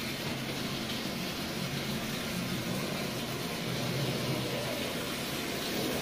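Marx Commodore Vanderbilt toy locomotive running in reverse on tinplate track: its electric motor gives a steady hum over a noisy whir of gears and wheels on the rails.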